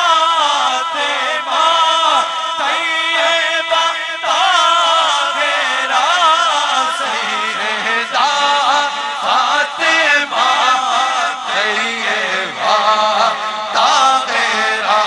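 Devotional chanting in a Middle Eastern style: ornamented, wavering voices over a held low note, with no break.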